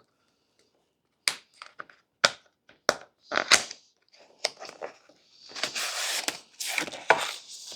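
A screen protector package being opened by hand: scattered clicks and crackles of packaging, then a longer rustle about two thirds of the way in.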